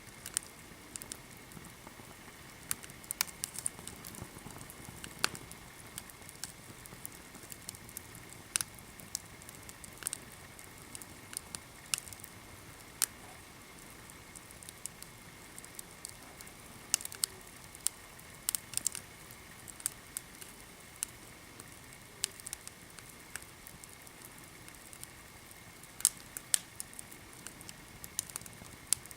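Small wood fire crackling, with irregular sharp pops and snaps over a low hiss.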